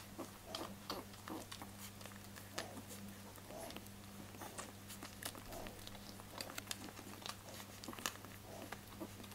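Nine-day-old English Springer Spaniel puppies squirming and shuffling on their bedding: soft rustling, patter and small clicks and smacks, with a steady low hum underneath.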